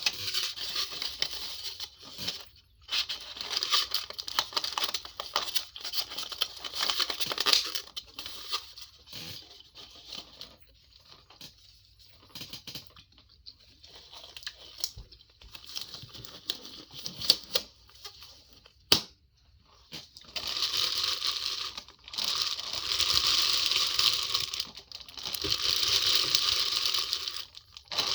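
Close-up crinkling and rustling of plastic food packaging being handled, in two long loud stretches with quieter scattered rustles and small clicks between them.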